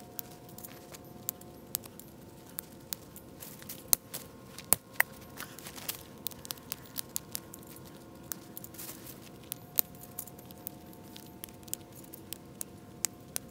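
Dry twigs being broken and dropped into a stainless-steel wood gasification stove: irregular snaps, clicks and clatters of wood on thin metal, a few of them sharper and louder.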